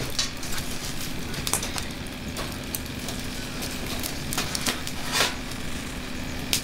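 Wood fire crackling, with scattered sharp pops, the strongest about five seconds in, over a steady background hiss.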